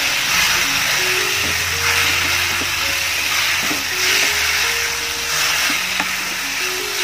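Chicken pieces sizzling in hot oil and masala in a kadai, the hiss swelling and easing as a spatula stirs them, with a few light knocks of the spatula on the pan. Background music with slow held notes plays underneath.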